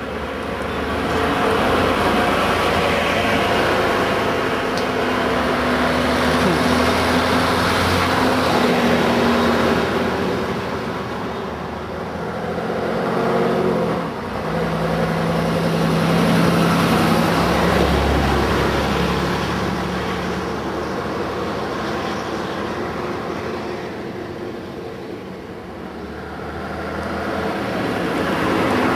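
Diesel engines of vintage buses running past one after another: an AEC Merlin single-decker, then a red double-decker, with an AEC Regent III RT double-decker coming up near the end. Each engine grows louder as the bus nears and fades as it goes by.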